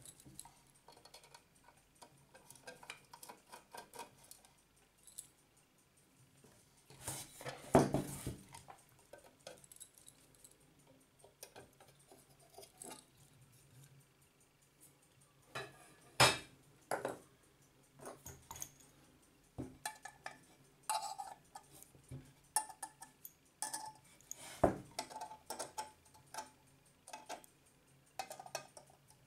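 Irregular clinks, clicks and knocks of small metal parts and tools being handled while a ship's clock is dismantled by hand: the dial lifted off and screws undone with a small screwdriver. The loudest knocks come about 8, 16 and 25 seconds in.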